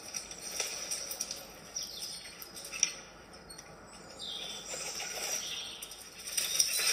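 Small birds chirping and fluttering, with scattered sharp clicks, from a CatTV bird video played through an Amazon Echo Show's speaker.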